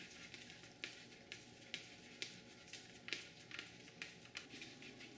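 Faint soft rubbing and tapping of a palm pressing and smearing chana dough against an aluminium baking sheet, a stroke every half second or so.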